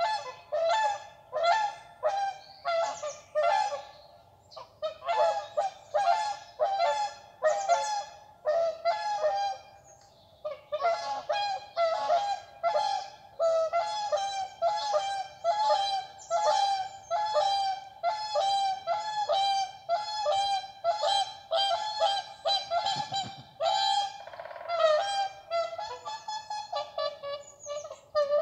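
A goose honking over and over, short calls at about two a second with a brief pause partway through.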